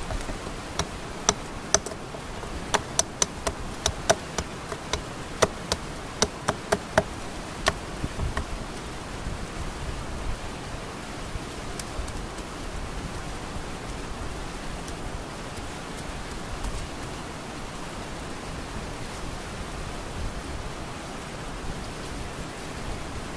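A machete striking the top of a wooden stake, hammering it into the ground: about twenty sharp knocks over the first eight seconds, then they stop and only a steady hiss remains.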